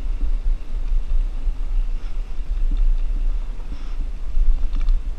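Wind buffeting an action camera's microphone as a mountain bike rolls fast down a dirt trail, a heavy uneven rumble with the light rattle of the bike over the ground. A quick cluster of clicks near the end.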